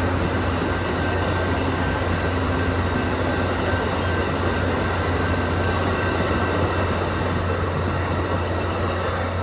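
Amtrak Superliner bi-level passenger cars rolling past: a steady rumble of wheels running on rail, with a low steady hum underneath.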